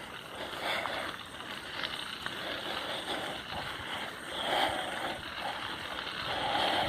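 Mountain bike rolling along a dirt trail: tyre and bike noise that swells and fades every second or so, with wind on the microphone.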